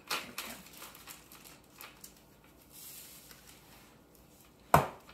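Glitter being shaken from a plastic shaker jar into a Ziploc bag: faint plastic rustling and light taps. A single sharp knock about 4.7 seconds in, as the jar is set down on the counter.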